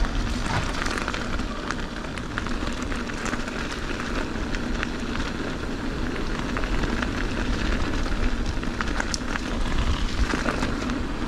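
Mountain bike rolling downhill: steady tyre noise with many small clicks and rattles from the bike, under a low wind rumble on the microphone.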